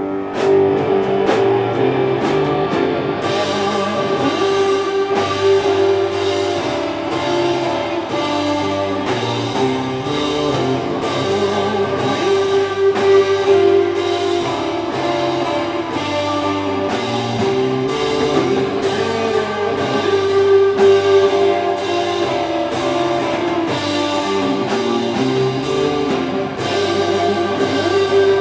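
Live rock band playing: electric guitars and keyboard holding sustained notes over a drum kit. The drums and cymbals come in strongly about three seconds in and keep a steady beat.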